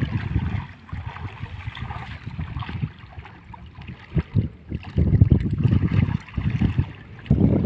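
Wind buffeting the microphone in uneven gusts, surging from about five seconds in, over light splashing of shallow sea water around a wader's legs.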